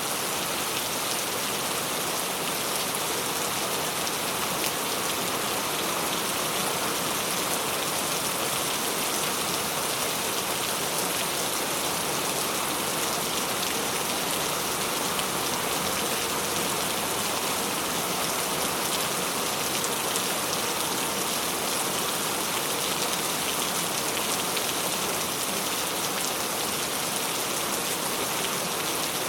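Steady rain falling: a dense, even patter of drops over a constant hiss, unchanging throughout.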